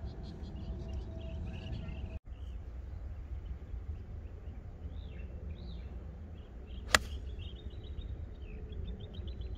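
A golf club striking the ball once on a fairway shot, a single sharp crack about seven seconds in. Birds chirp faintly over a steady low rumble of wind on the microphone.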